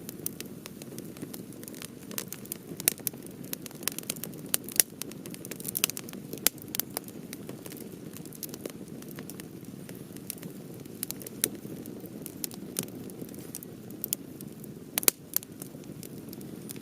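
Campfire of half-dried cedar wood burning: a steady low rush of flame under frequent sharp crackles and pops, thickest in the first several seconds, with a few loud pops now and then.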